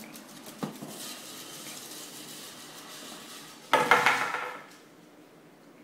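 Hollow plastic wiffle ball bat scraping and knocking along a hard floor as a small dog drags it, with a single knock early and a loud, ringing hollow clatter about four seconds in as the bat strikes the floor.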